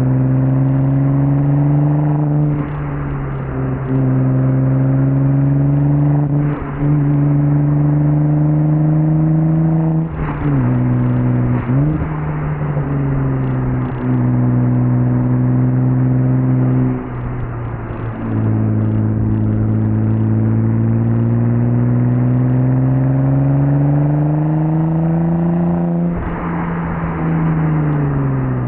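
1998 Audi S4 B5's 2.7-litre twin-turbo V6 pulling on the open road, its pitch holding or climbing slowly, then dropping with several brief lifts and gear changes along the way, including a quick blip a little before the middle and a long rise that falls away near the end.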